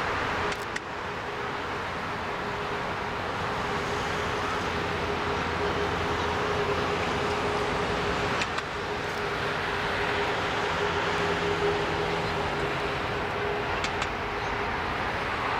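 Airbus A380-800's Rolls-Royce Trent 900 turbofans running at taxi power as the jet rolls past: a steady rushing jet noise with a steady whine running through it.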